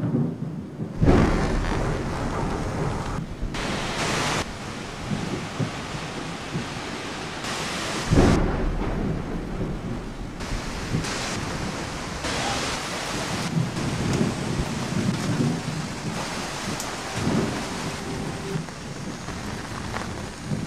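Thunder over steady rain. A sharp thunderclap breaks about a second in and another about eight seconds in, each rolling off into rumbling, under a constant hiss of rainfall.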